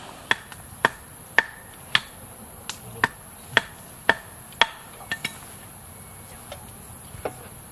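Repeated sharp chopping or hammering blows, about two a second, nine in a row, then a few lighter knocks.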